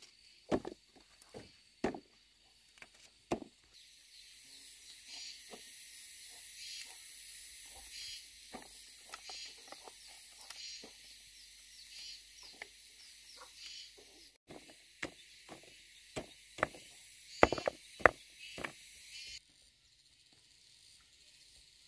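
Scattered sharp knocks, with a steady high hiss that starts about four seconds in and cuts off suddenly near the end.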